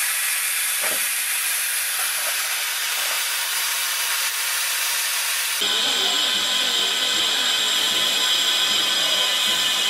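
Green Robert Stephenson & Hawthorns saddle tank steam locomotive standing with steam hissing steadily. A little over halfway through the sound cuts to a closer, higher hiss with a faint low pulsing a little under twice a second.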